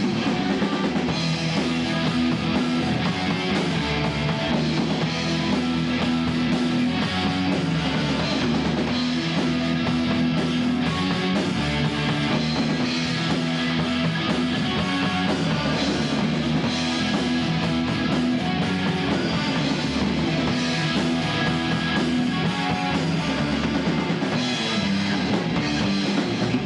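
Live rock band playing: electric guitars with a drum kit keeping a steady beat, loud and continuous.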